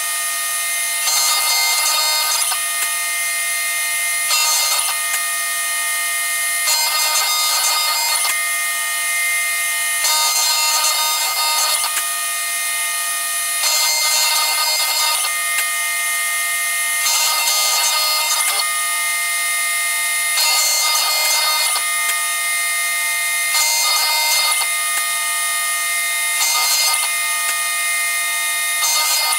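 6090 CNC router's spindle whining steadily while its engraving bit cuts lettering into a metal coin blank. The cutting noise changes in a regular pattern every second or two as the bit moves from letter to letter.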